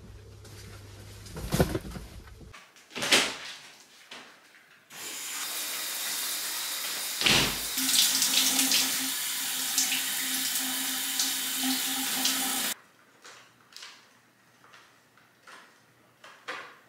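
Shower spray running steadily for about eight seconds, starting and stopping abruptly. A few knocks come before it and light clicks after it.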